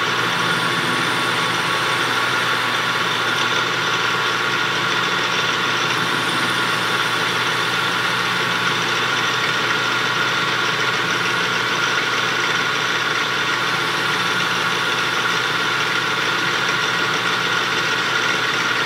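Metal lathe running steadily, its spindle turning half-inch bar stock while it is cut down to 0.400 inch for a model steam engine piston. It makes an even hum with several steady whining tones that does not change.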